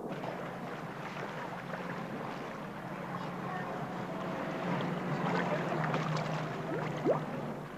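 Steady noise of water with a low hum underneath. A few brief rising squeaks come about five to seven seconds in.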